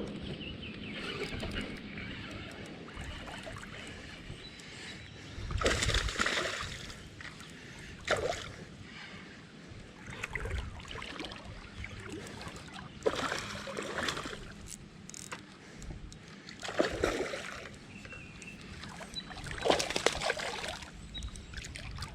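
Water splashing and sloshing in irregular bursts over a steady trickle of river water.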